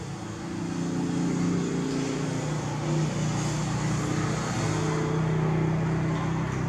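A motor vehicle's engine running steadily, its hum growing louder about half a second in and then holding.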